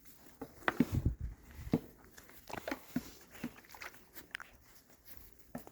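Baby goats and a cat moving about and feeding on milk: irregular short taps, scuffs and mouth sounds, about a dozen spread over several seconds.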